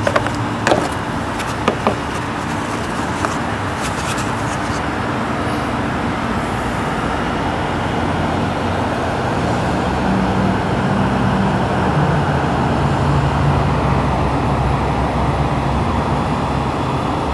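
Steady motor-vehicle running noise with a low hum that shifts in pitch from about halfway through. A few sharp plastic clicks come in the first few seconds as the fuse box cover is handled.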